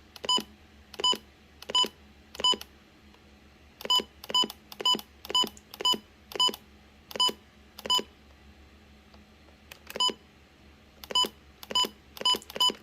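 Retekess TR265 weather radio's key beeps: a short, identical electronic beep with each button press while scrolling through its location menu. About seventeen beeps come at an uneven pace, a pause of about two seconds interrupts them in the middle, and they come in quicker succession near the end.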